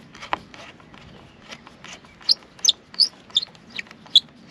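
A bird calling, a quick series of short, high chirps, each dropping in pitch, starting about halfway through and coming about three to four a second.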